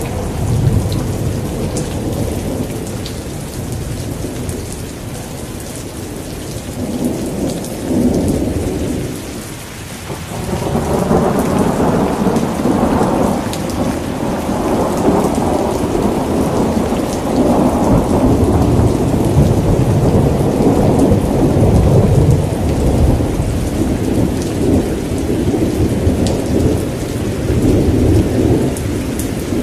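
Thunderstorm: steady rain falling with rolling thunder. The thunder's low rumble eases off, then swells again about ten seconds in and rolls on for most of the rest.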